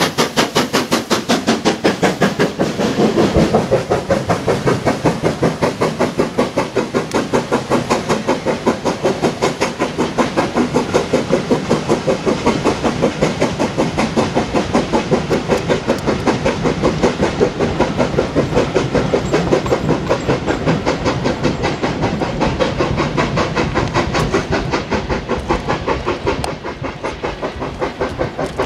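LMS Stanier Black 5 4-6-0 steam locomotive working hard, its exhaust beating in a fast, even rhythm as its train of coaches passes. The beats ease slightly near the end as the train draws away.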